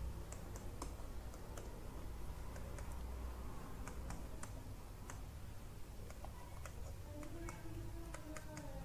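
Faint, irregular clicking and tapping of a digital pen on a writing tablet as handwriting is put down, over a low steady hum.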